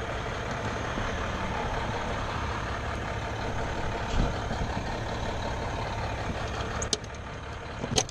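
Fire engine's diesel engine idling with a steady low rumble. A low thump comes about four seconds in, and a few sharp metal clicks near the end as the bumper hose compartment is opened.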